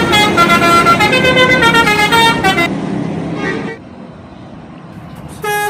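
Indonesian bus 'telolet' horn, a multi-tone musical air horn, playing a fast melody of stepping notes. It stops about three seconds in, leaving quieter background noise, and another telolet melody starts just before the end.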